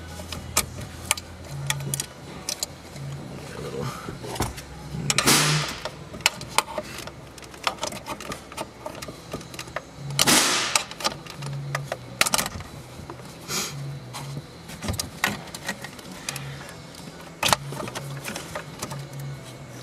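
Hands working behind a car radio, unplugging its wiring connectors: scattered clicks and rattles of plastic, with a few louder rustling scrapes.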